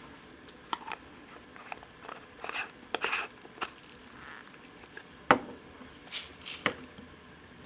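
Scattered plastic clicks, taps and a little rustling from handling the FinaMill pepper mill and its spice pods, with two sharper knocks a little past the middle. No grinding motor runs.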